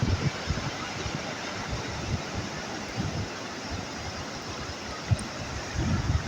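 Sea surf washing in a steady hiss, with wind buffeting the microphone in low rumbling gusts at the start, about halfway through and near the end.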